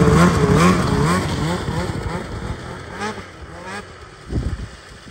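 Snowmobile with a Straightline Performance ultra light aftermarket muffler, loud, revving in quick blips and then pulling away across the snow. Its engine note fades with distance, with a couple more rising revs around the middle.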